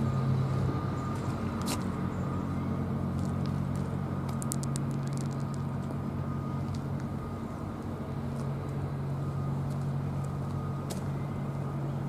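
Steady low hum of a running vehicle engine with traffic noise, and a short run of light clicks about four to five seconds in.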